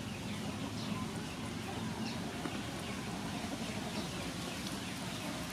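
Faint short high chirps of small birds, roughly once a second, over a steady hiss of outdoor background noise.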